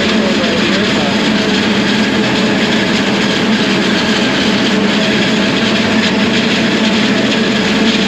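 Self-propelled forage harvester running steadily under load while its corn head cuts and chops standing corn: a loud, even machine noise.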